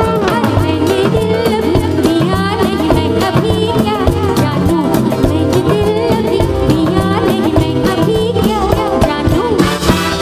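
Live band playing a Bollywood song with a woman singing, driven by a steady drum and percussion beat. Near the end a cymbal crash rings out as the song reaches its final chord.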